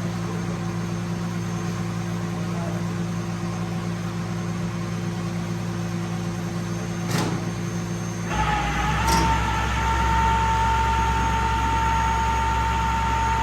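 Vehicle engine running with a steady hum. About eight seconds in, after a click, a deeper rumble and a steady high whine come in and hold.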